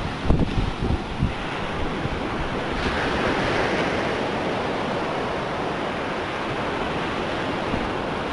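Storm surf breaking and washing up the beach, a steady rushing that swells about three seconds in. Wind buffets the microphone in the first second or so.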